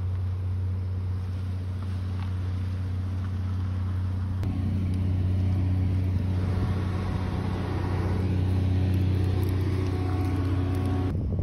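Steady low hum of a running engine, with a second, higher steady tone joining about four and a half seconds in.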